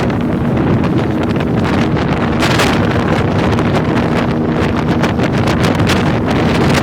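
Wind buffeting the microphone over the steady low hum of a boat's motor, with gusts and water noise.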